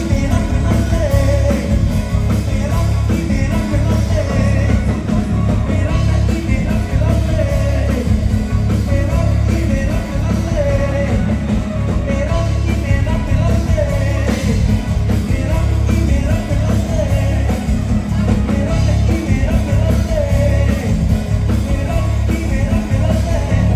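Live band music with a female singer singing over a strong, steady bass.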